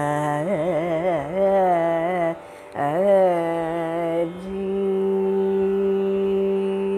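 Female Carnatic vocalist singing in raga Mukhari, with rapid oscillating ornaments (gamakas) on the notes. Two phrases break off briefly, then a long steady held note begins about four seconds in.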